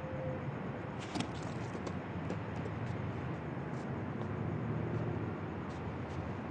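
Steady low rumble of city traffic, with a couple of sharp clicks about a second in.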